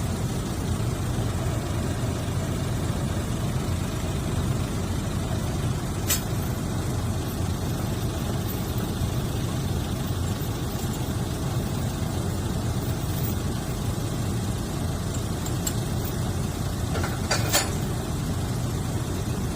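Heavy vehicle engine running steadily with a low rumble, broken by a short sharp click about six seconds in and a brief cluster of sharp clicks near the end.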